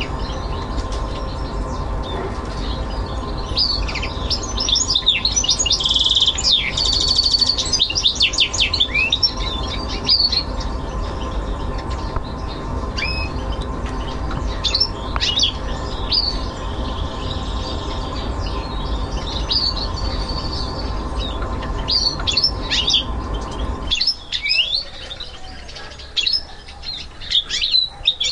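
A goldfinch mule (goldfinch × canary hybrid) singing: a run of twittering phrases with fast trills, busiest about four to nine seconds in and again near the end. A steady low hum sits underneath and cuts off suddenly about four seconds before the end.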